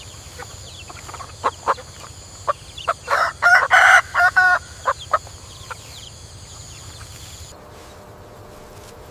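Bird calls: a run of short, sharp pitched calls that come thick and loudest in the middle, over a steady background hiss.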